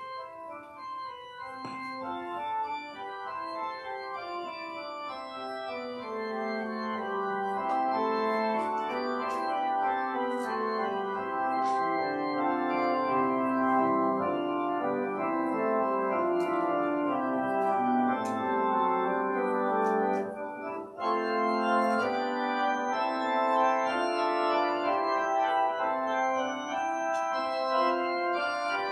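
Organ music: sustained chords with a moving melody, growing louder over the first few seconds, with a short break about two-thirds of the way through.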